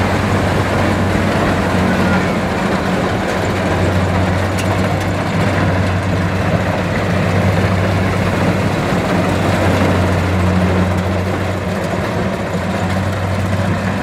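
Kubota DC-70 combine harvester running under load as it cuts rice: a steady diesel engine drone with a dense rushing noise from the cutting and threshing gear over it.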